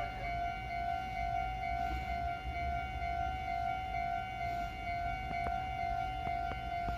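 Japanese railway crossing warning bell ringing steadily, a pitched electronic ding repeating a few times a second. A run of sharp clicks joins in about five seconds in.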